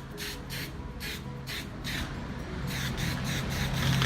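Aerosol spray-paint can spraying in a series of short hissing bursts, about two or three a second, as black paint is sprayed onto a speaker box.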